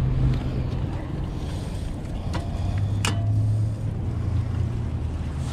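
Low steady rumble with wind on the microphone, and a sharp click about three seconds in.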